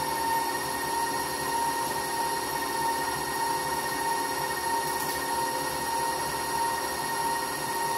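Electric stand mixer running at a steady speed, a constant motor whine, beating butter, sugars and an egg into cookie dough.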